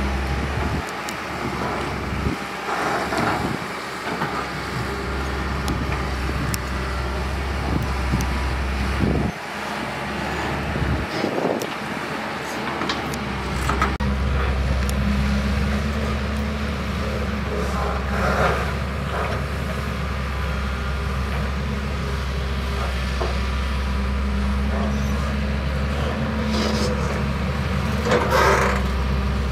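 Diesel engine of a Caterpillar 320CL long-reach excavator running steadily while it works, with a few short, louder bursts of noise along the way.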